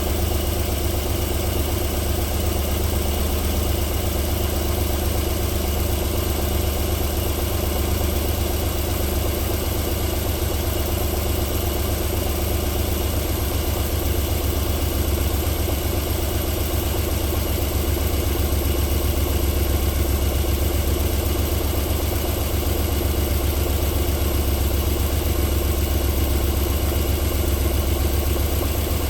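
Alfa Romeo 3.0 24-valve V6 idling steadily and smoothly after a cold start.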